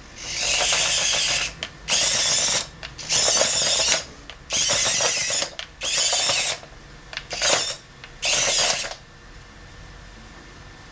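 Small electric drive motors of a 3D-printed tracked robot, whirring as they drive its plastic tracks, in seven short bursts that start and stop as the gamepad joysticks are moved.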